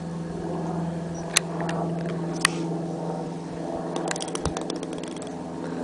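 Yo-yo tricks such as walking the dog: two sharp clicks about a second and a half and two and a half seconds in, then a quick run of ticks about four seconds in, over a steady low hum.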